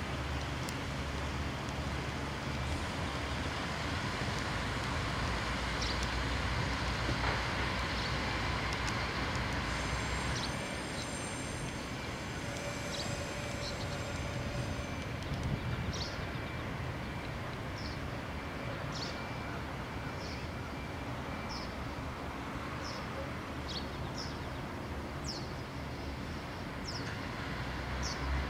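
Diesel railcars of the Shigaraki Kohgen Railway SKR300/310 type running with a low, steady rumble as the train moves slowly away round a curve. A high-pitched squeal from the wheels on the curve comes in about ten seconds in and lasts some five seconds.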